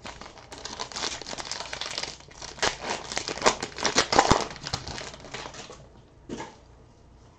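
Foil wrapper of a 2019 XR football trading card pack being torn open and crinkled, a dense crinkling for about five seconds that is loudest in the middle, followed by one short rustle near the end.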